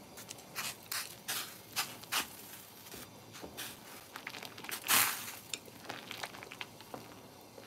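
Long wooden chopsticks stirring and separating soba noodles in a steel pot of hot water: irregular light clicks and taps, with one louder brief rush about five seconds in.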